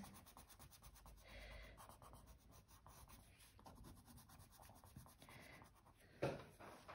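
Coloured pencil rubbing faintly on paper in soft shading strokes, with a brief louder knock near the end.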